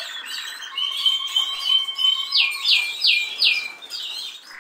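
Birds chirping: a quick run of four high, falling chirps a little past halfway, over thinner twittering and a faint steady whistle.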